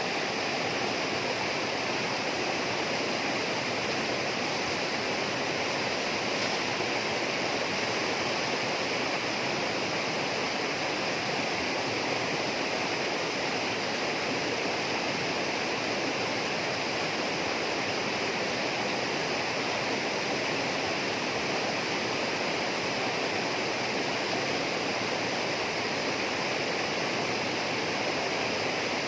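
Tropical rainforest ambience: a steady, unbroken rush of flowing water at an even level.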